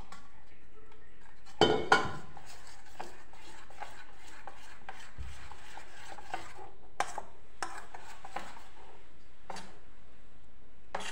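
Metal spoon stirring and beating thick gram-flour batter in a steel bowl, scraping steadily, with two sharp clinks against the bowl about two seconds in and a few lighter clinks later.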